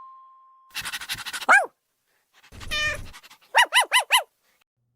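A dog panting with a short whine sliding down, then a bark, then four quick high yaps in a row.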